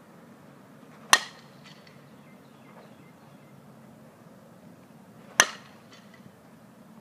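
Softball bat striking tossed softballs twice, about four seconds apart: two sharp cracks, each with a brief ring.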